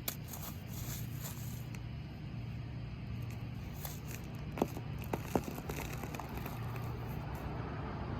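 Crushed Oreo cookies crackling and crunching in a hand, with a few sharp cracks around the middle, over a steady low hum.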